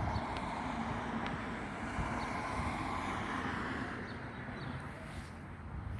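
Steady outdoor background noise: a low vehicle-like rumble and hiss with some wind on the microphone, easing slightly a few seconds in.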